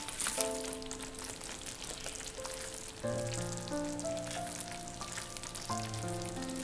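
Thick curry gravy sizzling as it simmers in a pan on the stove, under soft background music of held notes that change pitch, with fuller chords coming in about three seconds in and again near the end.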